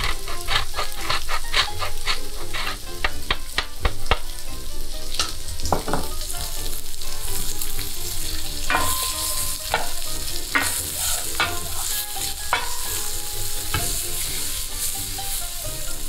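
A fork beating eggs and grated pecorino in a glass bowl, quick clicks of metal on glass several times a second; then smoked pancetta sizzling and crackling in a frying pan.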